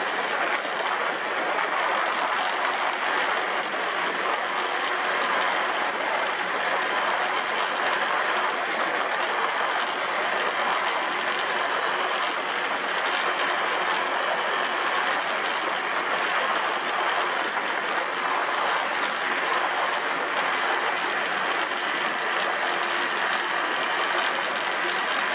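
All-terrain vehicle running steadily under way: a constant engine and drivetrain drone with a few faint steady tones, no change in speed or pitch.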